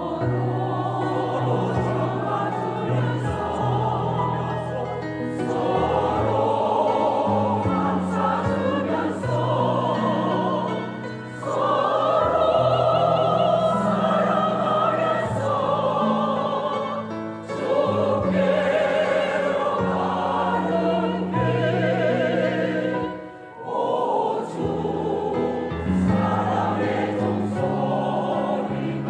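Church choir singing a sacred song in harmony, with vibrato and sustained low notes beneath, in long phrases broken by brief pauses for breath.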